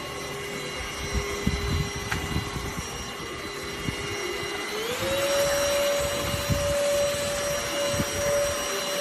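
Enolux K7 Pro cordless vacuum cleaner running with a steady motor whine; about halfway through its pitch glides up and settles higher as it gets louder. Low knocks and bumps come and go underneath.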